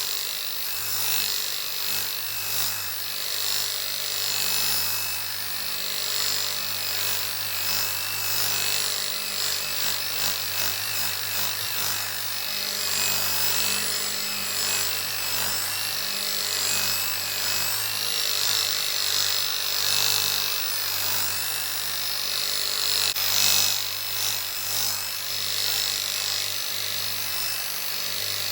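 Electric polisher running steadily while buffing the cured epoxy resin of an oak resin table top, a constant motor hum under the rubbing of the pad on the resin.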